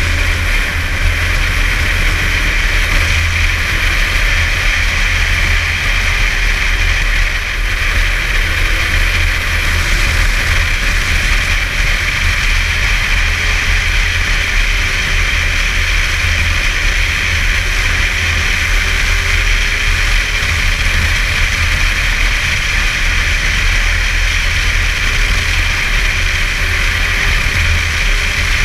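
Snowmobile running at a steady cruise along a trail, its engine note wavering only slightly, with a constant low rumble and hiss underneath.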